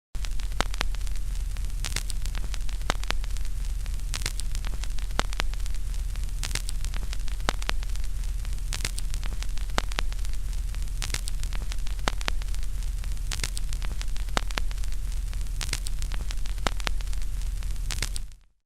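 Old television's static: a steady loud hiss over a low mains hum, scattered with crackles and clicks, the louder crackles coming back about every two seconds. It cuts off suddenly near the end.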